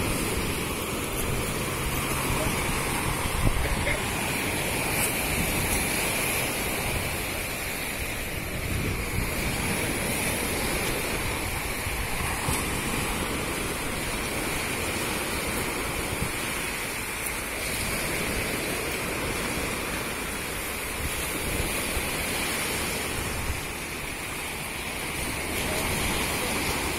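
Steady wash of sea surf on the shore, with wind buffeting the microphone as an uneven low rumble.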